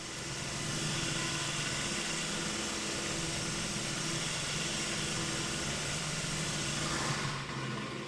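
Spindle of a 1998 Shoptask XMTC Gold lathe-mill combo running steadily with a hum while a No. 44 drill cuts a clearance hole into a bronze casting, a hissing cut over it. About seven seconds in the cutting hiss fades as the drill withdraws, leaving the spindle running.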